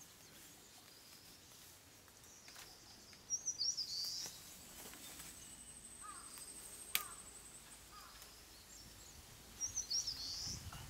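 A wild songbird calling twice, each a short burst of quick warbling notes, the second near the end. Between them a faint high, thin trill runs, and a single sharp click sounds about seven seconds in.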